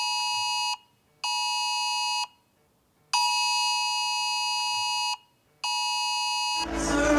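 UK Emergency Alerts test tone sounding on a mobile phone: a steady, buzzing alarm tone that pulses about two seconds on, a short gap, about one second on, then repeats. Shortly before the end it cuts off and crowd noise with music comes in.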